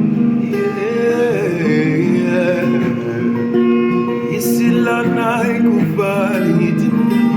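Acoustic guitar strumming, with a voice singing wordless runs and vibrato over it from about five seconds in.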